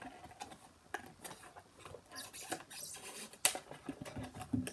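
A small cardboard box being carefully opened by hand: scratchy scraping and rustling of cardboard with scattered small clicks, thicker a little past the middle, and one sharp snap near the end.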